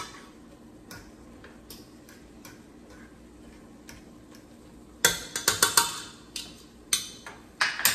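Andouille sausage and ground meat frying in a stainless steel pot, the hot fat giving faint, scattered pops. About five seconds in, a run of much louder sharp clicks and clatter comes from the pot.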